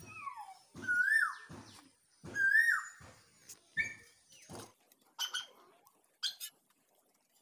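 An animal's high, whistle-like call, repeated four times about a second apart, each rising then falling in pitch, followed by a few short clicks and scuffs.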